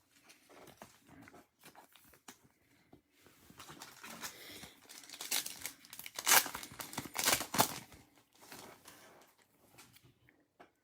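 A foil trading-card pack wrapper crinkling and being torn open, with a couple of sharp rips about six and seven seconds in, amid lighter rustling of handled cards.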